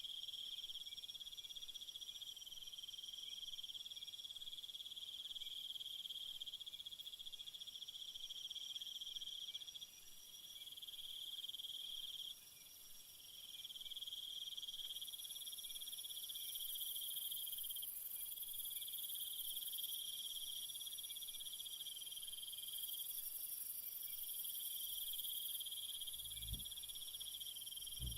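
Jungle insect chorus: several high, steady trilling songs overlapping, the main one pausing briefly twice in the first half, with an even higher hissing insect song joining about halfway. Two low thumps near the end.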